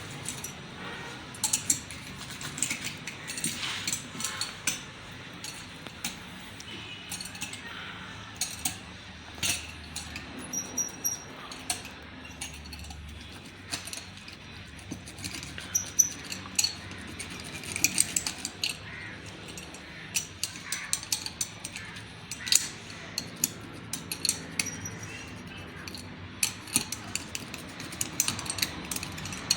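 Irregular light metallic clicks and clinks of hand tools being handled and worked, with a few brief high rings.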